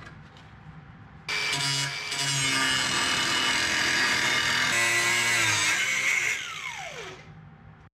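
Angle grinder starting up about a second in and cutting through a rusty steel plate for about five seconds, a loud whine with a rasping edge. Near the end it is switched off, and the disc winds down in a falling whine.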